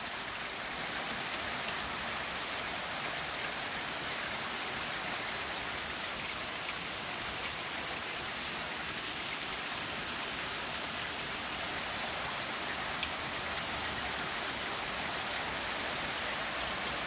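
Steady rain falling.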